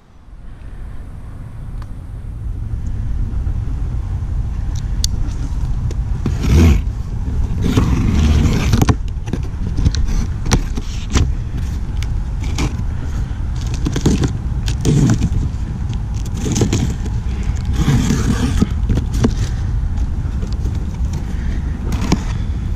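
Cardboard shipping boxes being handled and their packing tape slit with a pocket knife: repeated scrapes and crackles, in clusters, over a steady low rumble of wind on the microphone.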